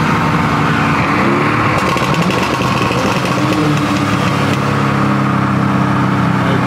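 Car engine running at speed, heard from inside the cabin: a steady drone with a couple of short rises in pitch as the throttle changes.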